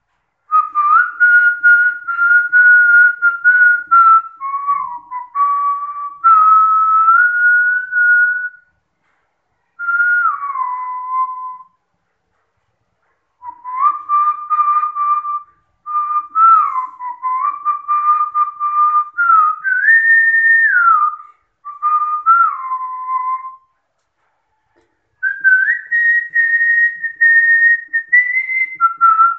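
A person whistling a tune by mouth: a single clear melody line stepping up and down between held notes, in phrases broken by short pauses, with a fluttering warble on the notes.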